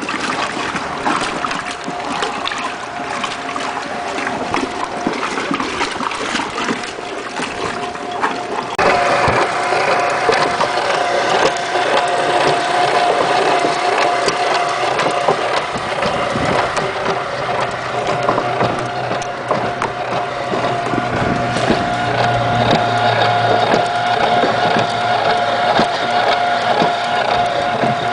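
Antique Easy wringer washing machine running in gear: its electric motor and gearbox drive the agitator, churning water and rags. About nine seconds in the sound gets louder and a steady hum comes in, which holds to the end.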